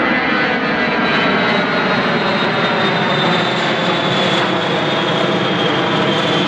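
Four Pratt & Whitney JT3D turbofan engines of a Boeing 707 passing low overhead: a loud, steady jet roar threaded with many whining tones that slowly fall in pitch.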